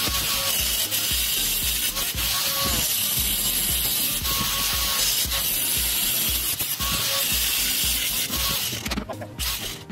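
Angle grinder with a cut-off disc cutting through a metal bed-rack plate: a steady, loud grinding that stops about nine seconds in.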